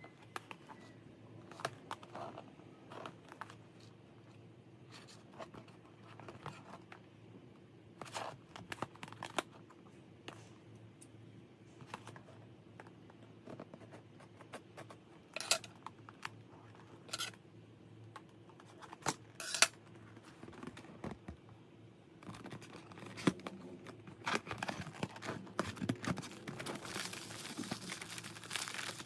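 Handling sounds of a cardboard figure box: scattered taps and scrapes, then scissors snipping the tape seal with several sharp snaps in the middle. Later, a denser rustle of plastic wrapping crinkling as the bagged parts inside the box are handled, loudest near the end.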